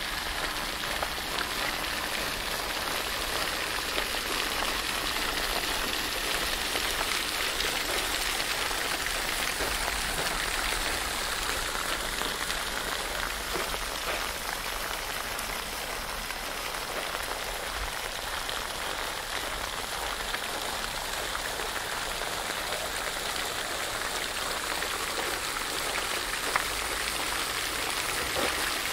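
Steady rain falling on street and pavement: an even hiss with scattered drop ticks.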